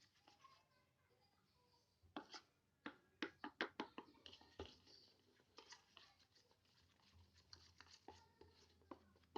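Faint clicks and taps from hands handling small things, with a quick run of sharp taps about two to four seconds in and scattered lighter ones after.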